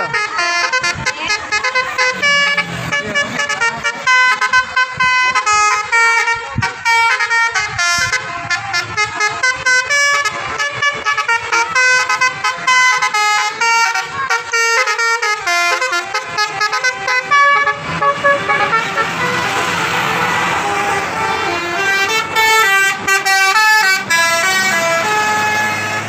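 Intercity buses' multi-tone 'telolet' musical air horns playing quick tunes of stepped notes, one run after another.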